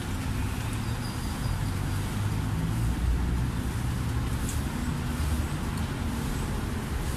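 Chilled soda water pouring from a glass bottle into a plastic measuring jug, under a steady low rumble of a motor vehicle engine running close by.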